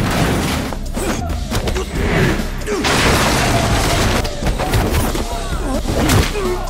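Film fight-scene soundtrack: punches, and crashes as bodies are thrown into lockers and furniture, over action music, with fighters' voices shouting.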